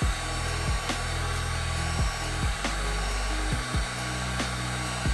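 Heat gun on its low setting blowing steadily, an even hiss of hot air, under background music with a bass line and a regular beat.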